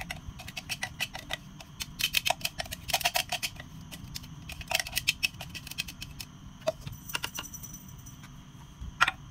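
Silicone spatula scraping and tapping against a plastic mini-chopper jar, clearing out blended mushroom stems and garlic: quick runs of light clicks and scrapes, busiest two to three seconds in, then a few scattered taps.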